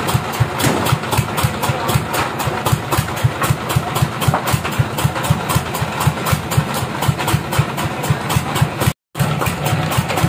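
Engine powering a band sawmill running steadily with a regular low pulse, with no cut being made. The sound drops out briefly near the end.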